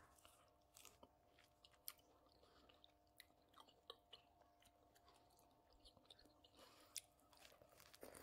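Faint chewing of fresh orange wedges: scattered small clicks and crackles, irregular throughout.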